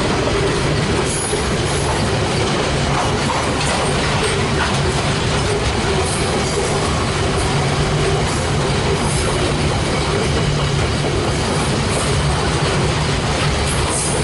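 Grain hopper wagons of a freight train rolling past at close range: a loud, steady rumble of steel wheels on rail that does not let up.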